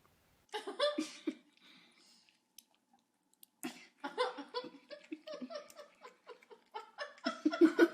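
A person laughing in two bouts of rapid, broken giggles: a short burst about half a second in, and a longer run from about three and a half seconds on.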